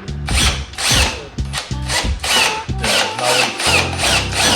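Power drill drilling a pilot hole into a soft plastic bumper cover, heard together with background music with a steady beat.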